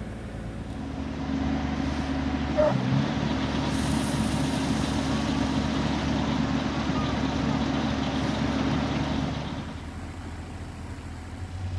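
Farm tractor engine running steadily. It grows louder about a second in and dies down near the end.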